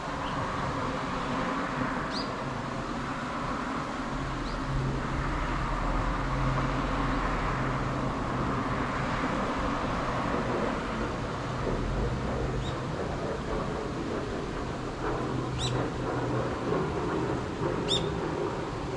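Steady hum of road traffic with a low engine drone that swells and fades through the middle, and a few short high chirps scattered throughout.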